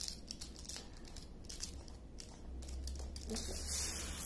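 Clear plastic protective sheet on a diamond painting canvas crinkling and crackling as it is handled and smoothed flat by hand, with a louder rustle of the plastic near the end.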